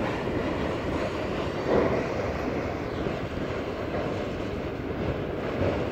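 Autorack freight cars rolling along the track, a steady rumble of steel wheels on rail, a little louder for a moment about two seconds in.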